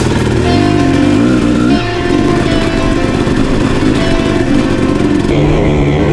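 Dirt bike engine revving up and down while riding, mixed with background music that has short held notes.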